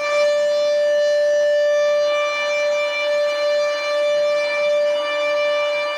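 Air raid siren sounding during a test, holding one loud, steady tone without rising or falling.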